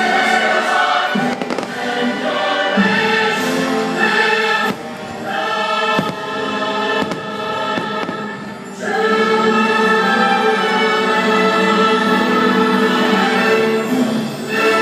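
A choir singing long held chords over an orchestral soundtrack, with fireworks bursting now and then. A dip about five seconds in gives way to one long held chord for the last third.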